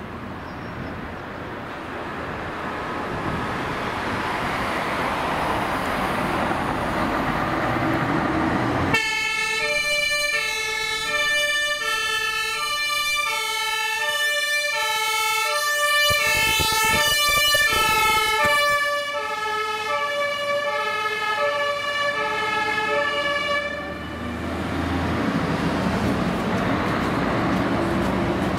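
The diesel engine of a Mercedes-Benz telescopic-mast fire truck (the TM54) grows louder as it pulls out. About nine seconds in, its two-tone German emergency horn (Martinshorn) starts suddenly, alternating between two pitches for about fourteen seconds, then stops. The engine runs on as the truck drives away.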